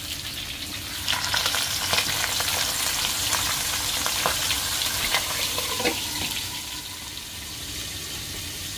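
Dried bisugo (threadfin bream) fish going into hot used oil and frying: a crackling sizzle with many sharp spattering pops. The sizzle gets louder about a second in, when the fish meets the oil, and eases near the end.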